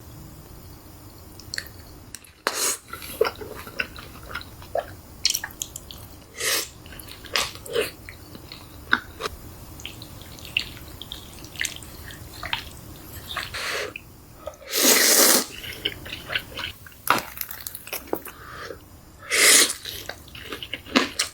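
Close-up eating sounds from spicy chicken legs: a string of short wet smacks and crunchy bites, with a few louder noisy bursts, the longest about fifteen seconds in.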